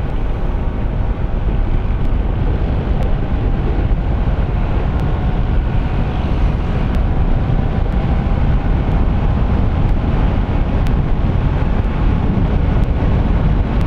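Steady wind rush on the microphone over a Honda ADV 160 scooter's single-cylinder engine cruising at road speed.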